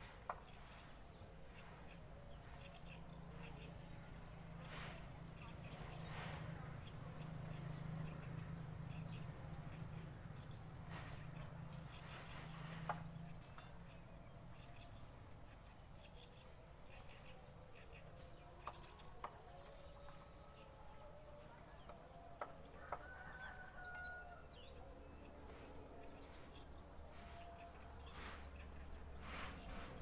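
Faint outdoor ambience of steady high-pitched insect trilling, with a low hum, a few faint clicks, and a few faint distant bird calls about two-thirds of the way through.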